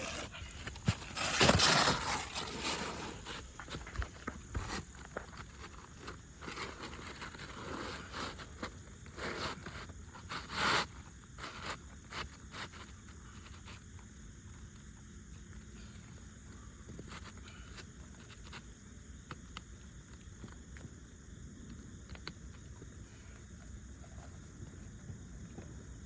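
Scraping, rustling and light clicks of hands and tools working asphalt roof shingles, with louder scrapes about a second in and again around ten seconds in, then only faint scattered ticks.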